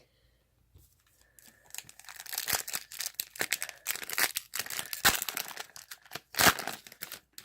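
A foil trading-card pack wrapper being torn open and crinkled: a run of crackling rips and crinkles that starts about a second in and is loudest near the end.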